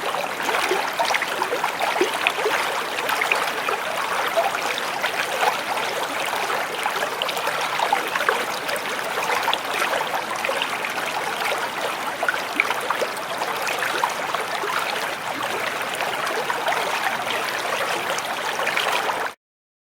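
Stream water running steadily, full of small trickling splashes; it cuts off suddenly near the end.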